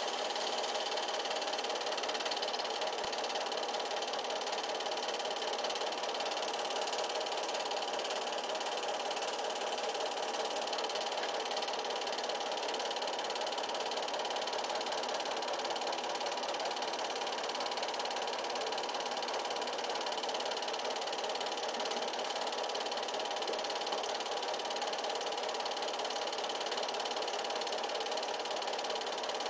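8mm film projector running: a steady mechanical whir from its motor and film transport.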